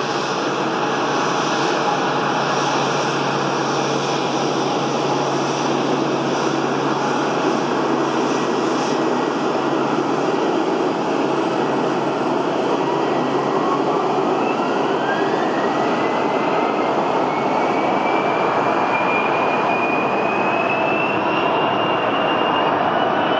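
Twin GE CF34 turbofan engines of a CRJ-702ER regional jet running with a steady whine over a loud rush of air. About halfway through a whine begins rising steadily in pitch as the engines spool up toward takeoff power.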